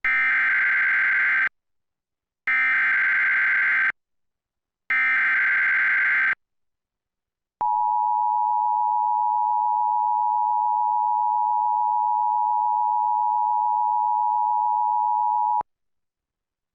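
Emergency Alert System tones: three short bursts of the warbling digital SAME header, each about a second and a half long, followed after a pause by the steady EAS attention tone held for about eight seconds before it cuts off. These tones signal the start of a broadcast warning, here a Severe Thunderstorm Warning.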